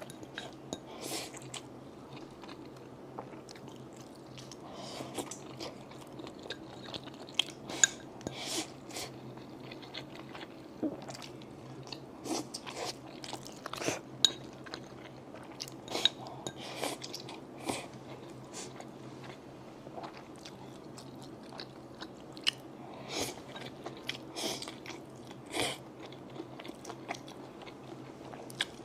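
A person chewing and biting food close to the microphone, with irregular crunchy, crackly bites and wet mouth sounds.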